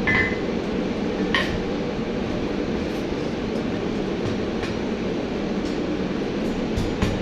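A steady low rumble with a few light metallic clinks now and then.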